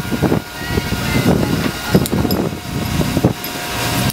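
Steady mechanical hum and low rumble, with scattered knocks and a few sharp clicks.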